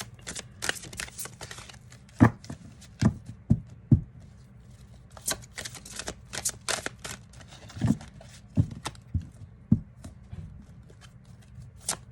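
A deck of tarot cards being shuffled and handled: irregular quick clicks and snaps of cards, with several sharper knocks scattered through.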